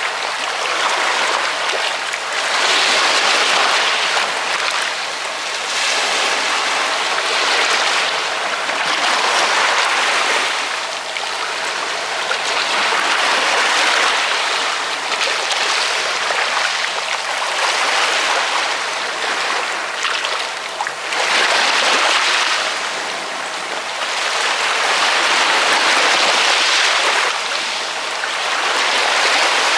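Ocean waves washing on a shore, a steady rush of surf that swells and eases every few seconds.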